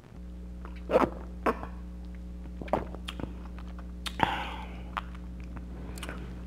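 Close-miked mouth sounds after a swig of apple pie soda from a glass bottle: swallowing and wet lip and mouth clicks, the loudest about a second in, with a short breathy exhale a little past four seconds. A steady low hum lies underneath.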